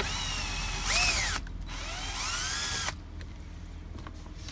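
Cordless power driver with a T15 Torx bit backing screws out of a dash panel, running in two bursts of about a second each, its motor whine rising and falling in pitch as the trigger is squeezed and let off.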